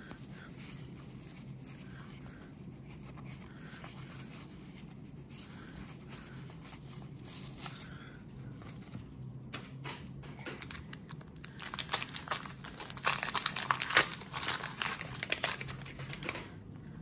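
Baseball cards handled softly, then from about ten seconds in several seconds of loud crinkling and tearing, as a paper card-pack wrapper is torn open.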